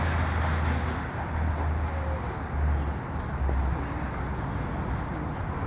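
Outdoor background noise: a steady low rumble with a faint hiss, swelling and dipping in level.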